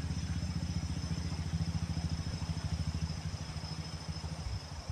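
A motor engine running at a steady pace, a low, fast, even pulsing that fades out near the end.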